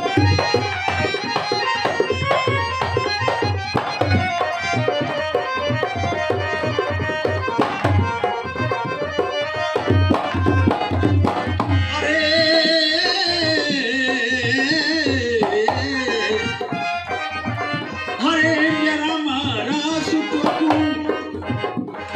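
Folk song music: a tabla-style hand-drum rhythm with a reedy, accordion-like accompaniment, and about halfway through a man begins singing into a microphone with an ornamented, wavering line, breaks off briefly and sings again.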